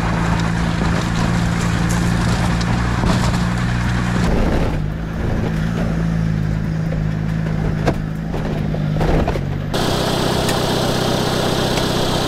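A vehicle running steadily with a low, even hum and occasional clicks and rattles; the sound changes abruptly about five and ten seconds in.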